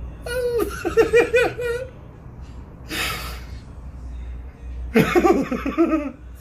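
Laughter in bursts: a quick run of ha-ha pulses in the first two seconds, a short breathy burst about three seconds in, and another laugh about five seconds in.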